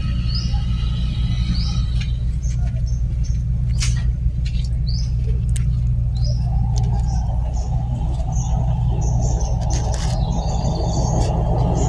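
A steady low engine hum, with birds chirping in short rising notes over it and a few sharp clicks.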